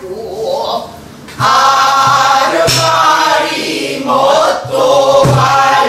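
Pansori-style singing of a danga line, the voice holding and bending long notes, with a few sharp strokes of a buk barrel drum keeping time.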